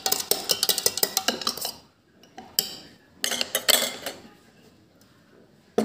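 A metal spoon clinking and scraping against a stainless steel mixer-grinder jar while spooning honey in, in three quick runs of taps, the first the longest.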